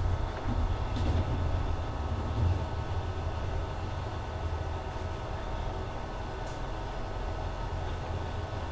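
Diesel-hauled regional train running along the line, heard from aboard: a steady low rumble of wheels on track with a couple of faint clicks.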